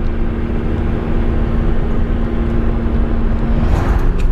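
Car engine and road noise heard from inside the cabin while driving up a hill road, a steady low rumble with a constant engine drone. The engine note shifts near the end.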